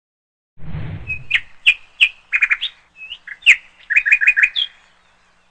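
Pet lovebirds chirping: a run of sharp, high chirps with two quick rattling trills, opened by a brief low rumble.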